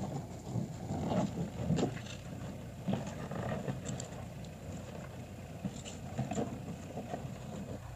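Tractor engine running steadily, with a few short knocks and clatters over it.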